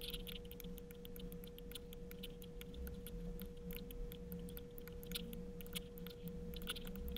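Faint room tone: a steady high-pitched hum with faint scattered clicks.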